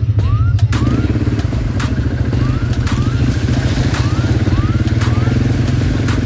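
ATV engine running under throttle, its note filling out about a second in, with irregular sharp knocks and rattles from the ride over the track. A short rising chirp repeats again and again over the engine.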